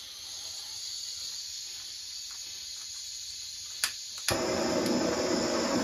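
Camping-gas blowtorch hissing as gas flows from the opened valve. About four seconds in come two sharp clicks of ignition, and the flame lights, turning the hiss into a louder, fuller steady burning sound.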